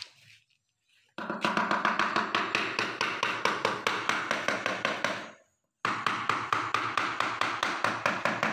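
Hammer tapping a freshly laid ceramic floor tile to bed it into the mortar: rapid, evenly spaced taps, about five a second, starting about a second in and breaking off briefly past the middle.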